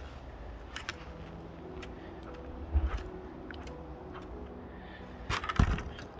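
Handling noises as a wet circuit board and cleaning things are moved about on a mat: scattered light clicks, a knock about three seconds in and a louder clatter near the end, over a low rumble.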